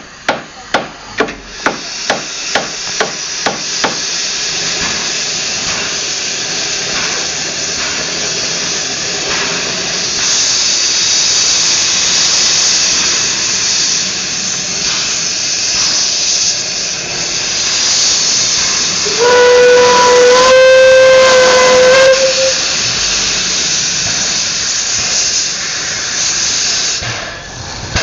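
Steam locomotive hauling carriages: a run of sharp regular beats, about three a second, in the first few seconds, then a steady hiss of steam. One steam whistle blast of about three seconds comes about two-thirds of the way through.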